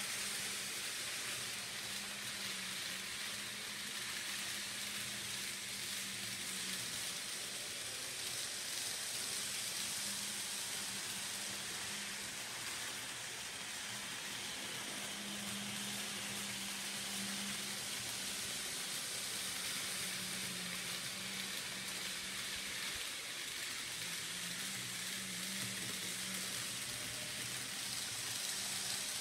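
N scale model train running around the layout's track: a steady hiss with a faint low hum that comes and goes.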